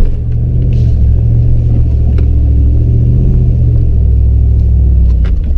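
Ram Power Wagon's Hemi V8 pulling the truck slowly along a dirt trail, a steady deep rumble.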